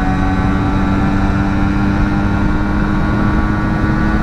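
1988 Kawasaki GTO 125 single-cylinder two-stroke engine running flat out at a steady high pitch in top gear at the bike's top speed, with wind noise rumbling on the microphone.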